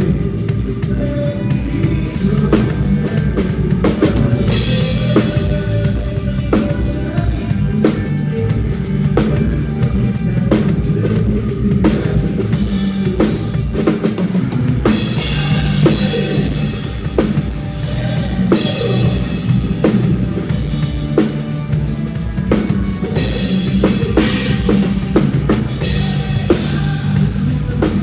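Drum kit playing a steady beat with bass drum and snare along with a song, with crash cymbal washes at a few points, about five seconds in, halfway through and near the end.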